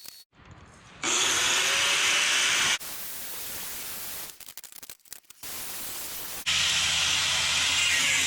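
Arc welding tacking steel tubing together: a loud crackling hiss that starts and stops abruptly in separate runs, with a steady low hum under the last run.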